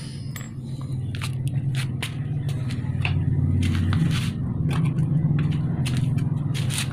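A steady low mechanical hum, with scattered clicks and light scrapes on top.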